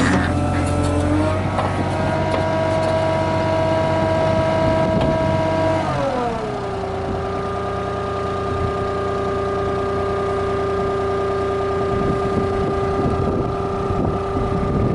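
Yanmar VIO20-1 mini excavator's diesel engine running at high revs, then dropping to a lower steady speed about six seconds in.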